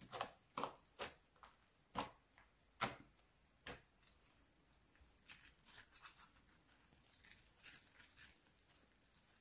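Slime being kneaded and folded by hand, giving a string of sharp, wet clicks and pops in the first four seconds, then softer, quicker crackling.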